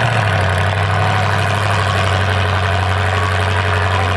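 Demolition derby cars' engines idling with a steady low drone.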